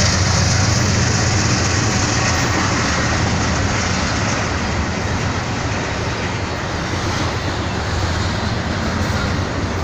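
Double-stack intermodal freight train rolling past at close range: steady noise of the container well cars' wheels running on the rails.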